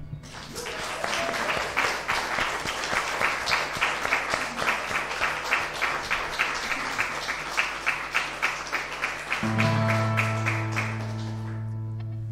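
Audience applauding with dense clapping that dies away near the end. About three quarters of the way through, an acoustic guitar starts ringing a low chord under the applause.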